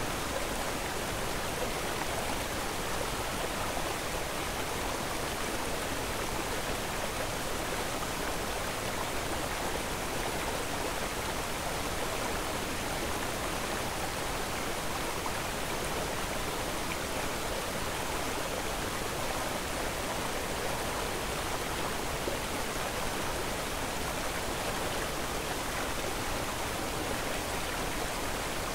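Steady, even rushing noise that spreads across the whole range from low to high and does not change.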